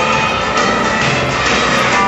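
Loud rock-and-roll song playing continuously over a hall's sound system as backing music for a dance act.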